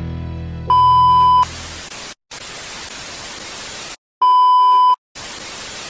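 A held musical chord breaks off and gives way to a VHS-style 'no signal' sound effect: a steady high test-tone beep, harsh TV static that cuts out and back in, a second beep about four seconds in, then more static.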